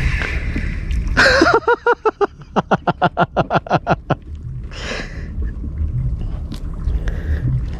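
A burst of rapid 'ha-ha-ha' laughter, about a dozen quick pulses lasting a couple of seconds, starting after a loud gust-like rush a second in. A steady low rumble runs underneath.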